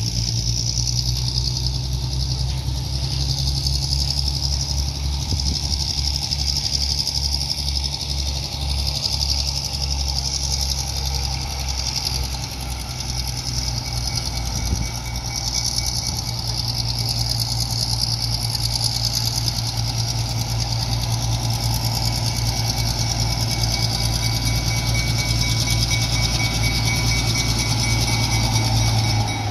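Diesel switcher locomotive engine running with a steady low rumble as the locomotive rolls slowly toward the listener, growing a little louder near the end, over a steady high hiss.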